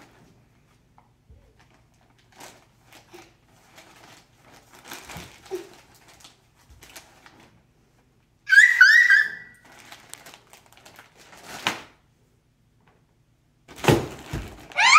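Faint rustling of plastic bags and clothes being handled, broken about two thirds of the way through by a short burst of a young girl's high-pitched giggling. Near the end there is a thump, and the giggling starts again.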